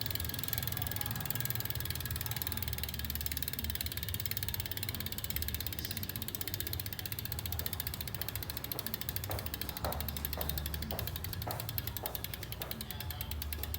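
DT Swiss rear hub's star ratchet buzzing as the rear wheel freewheels, a fast run of fine clicks, with a steady low hum underneath. From about nine seconds in, separate louder clicks come about twice a second.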